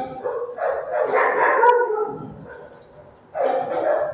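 Dogs barking in shelter kennels, in two bouts: a longer one from about half a second in to two seconds, and a shorter one near the end.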